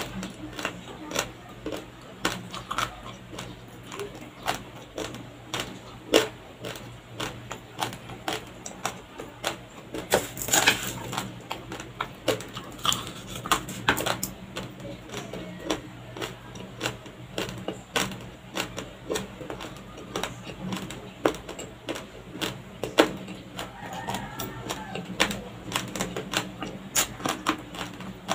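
Raw, uncooked rice grains being crunched and chewed, a fast irregular run of sharp cracks, several a second. There is a brief louder, noisier moment about ten seconds in.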